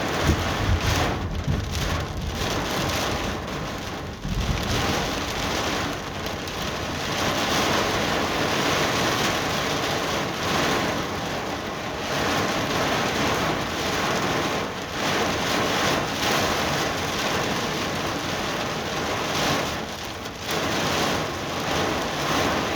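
Heavy rain pouring steadily in a thunderstorm, driven by gusting wind, with low rumbling surges in the first few seconds.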